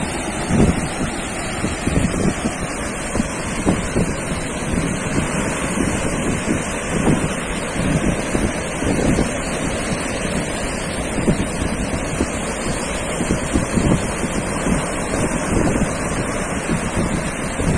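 Ocean surf washing steadily onto a sandy beach, with wind buffeting the microphone in frequent low gusts.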